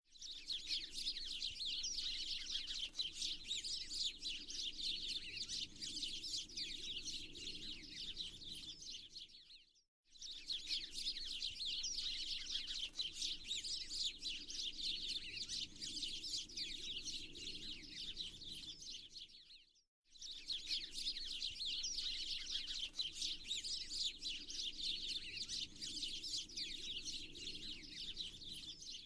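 Many small birds chirping and twittering at once in a dense, continuous chorus, with a soft low haze beneath. The chorus drops out to silence for a moment twice, at even spacing, and starts again each time, as a looped ambience track does.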